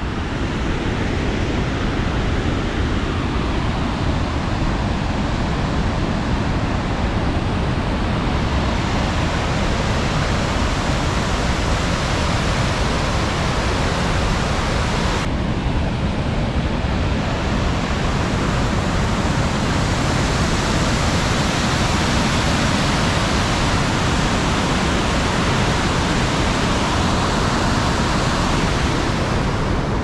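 Waterfall and whitewater rapids: a steady rush of heavy water. The sound shifts slightly about halfway through.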